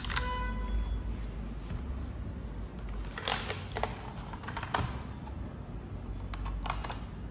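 A short ringing chime at the start. Then scattered sharp plastic clicks and clacks from a Logitech POP Keys mechanical keyboard as it is handled and turned over, in small clusters a few seconds apart.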